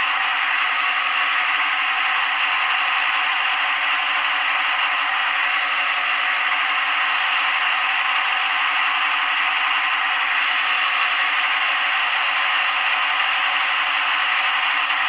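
Simulated machining sound of a CNC lathe simulator app during a G76 thread-cutting pass: a steady, even grinding noise that holds at one level throughout.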